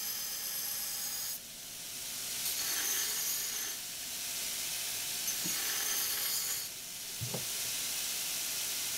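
Belt sander with a 3-inch-wide, 132-inch belt running and grinding a 4140 steel axe head, a steady hissing grind. It swells and eases in passes as the steel is pressed on and lifted, with drops at about one and a half seconds and seven seconds.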